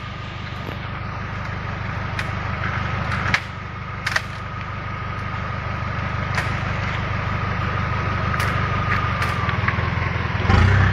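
Toyota Land Cruiser 70-series 4x4's engine running at low speed as it crawls over rocks through a stream, with a steady high whine that sags slightly near the end and a few sharp knocks. The engine grows louder, with a heavier surge near the end.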